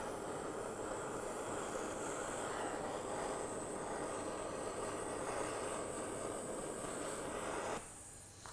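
Handheld kitchen blowtorch burning with a steady hissing flame, caramelizing the sugar on top of a crème brûlée. The flame cuts off near the end.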